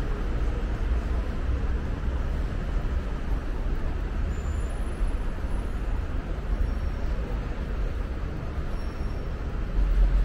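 Steady low rumble of city street traffic, swelling briefly near the end.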